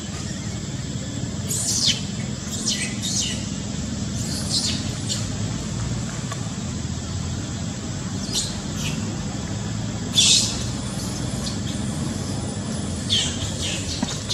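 Baby long-tailed macaque giving short, high-pitched squeals that fall in pitch, about ten of them with pauses between, the loudest about ten seconds in: distress cries while its mother holds it down. A steady low hum runs underneath.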